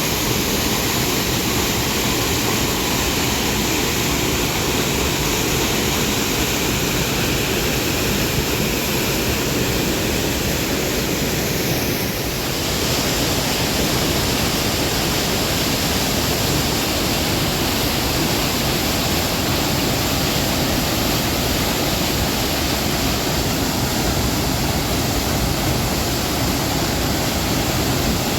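Loud, steady rush of cascading water, a continuous roar with no break. About twelve seconds in it dips briefly and its tone shifts a little brighter.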